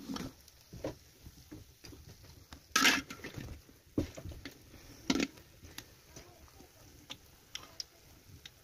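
Slotted metal skimmer knocking and scraping against a wok as pieces of khajor dough are turned in hot frying oil, with the loudest clatter about three seconds in. The oil sizzles faintly underneath.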